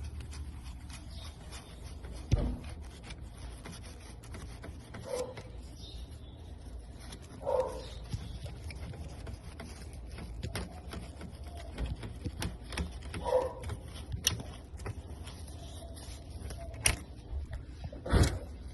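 Scattered clicks and light knocks of hands handling a graphics card, with a sharp knock about two seconds in and another near the end. A dog whimpers briefly a few times.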